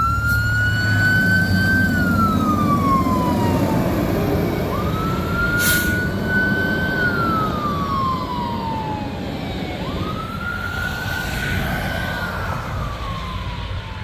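Fire engine's siren wailing three times, each wail rising quickly, holding, then falling slowly, over the engine running as the truck pulls away. The sound grows fainter as it drives off, with a brief burst of hiss about six seconds in.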